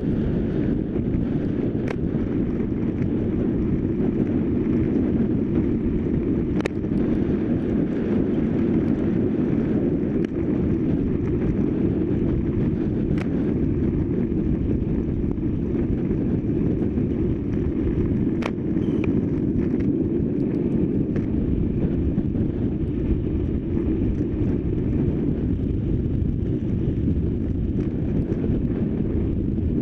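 Steady rush of wind over the microphone and tyre rumble from a road bike ridden fast on asphalt, with a few sharp clicks.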